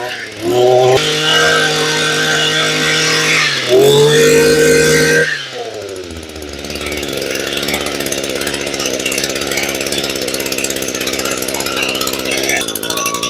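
Echo 26 cc two-stroke brush cutter engine test-run with the throttle open: high revs with two brief dips, then the revs fall away about five seconds in and it idles steadily, showing that it starts and responds to the throttle.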